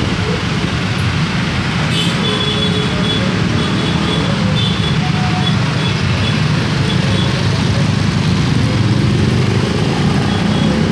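Dense urban road traffic passing close by, mostly motor scooters with cars and a minibus: a steady wash of small engines and tyre noise.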